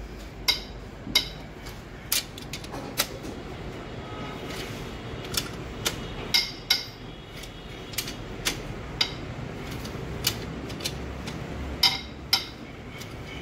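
Socket wrench with an extension tightening cylinder head bolts: irregular sharp metallic clicks and clinks, some in quick pairs, over a faint low hum.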